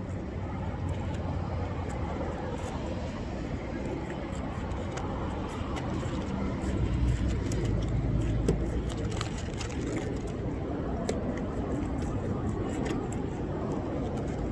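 Steady low rumble of a motor vehicle, swelling about seven seconds in and easing off after about nine, with scattered faint clicks.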